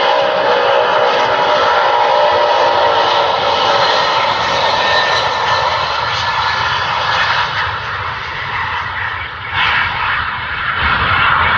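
Antonov An-124 Ruslan's four D-18T turbofan engines at takeoff power: a loud, steady roar laced with many whining tones, easing a little about two-thirds of the way through and then building again.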